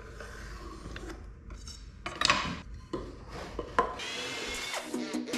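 A steel drawer slide and a plywood cabinet box being handled: rubbing and small knocks, with one loud clack about two seconds in. Steady tones come in about four seconds in, likely the start of background music.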